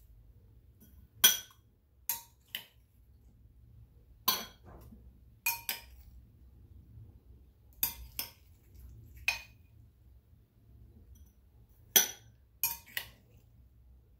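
Metal spoon clinking against a small glass bowl and a ceramic pot as fruit salad is scooped and served, about a dozen sharp ringing clinks at uneven intervals.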